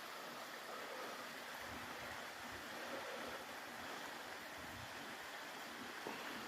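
Running water of a stream falling over a waterfall, a steady even rush.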